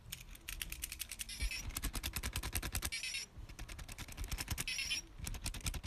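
Micropets toy bear's small motor and plastic gears clicking rapidly and evenly as it moves in the hand, with a brief pause about three seconds in.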